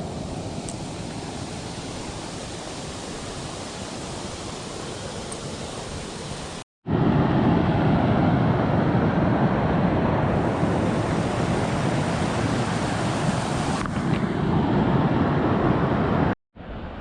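Steady rushing outdoor noise, in three stretches split by two brief silent cuts; the middle stretch is louder.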